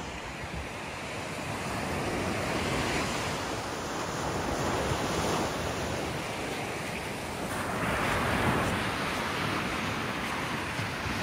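Ocean surf washing onto a beach, swelling louder every few seconds as waves break, with wind buffeting the microphone.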